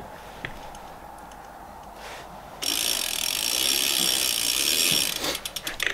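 BMX drivetrain spun by hand: the chain and sprocket run with a steady rapid rattle that starts suddenly about two and a half seconds in and stops about two and a half seconds later, followed by a few sharp metallic clicks.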